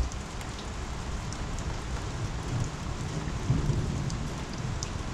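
Steady rain falling, an even hiss with a few faint scattered drop ticks.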